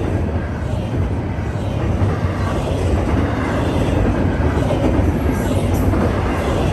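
Long freight train rolling past: a steady, loud rumble of wheels on rail, swelling slightly in the second half.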